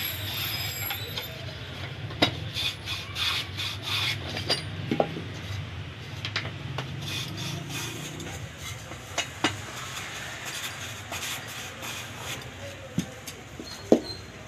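Wooden harmonium parts being worked by hand: rubbing and scraping on wood, with scattered sharp knocks and clicks.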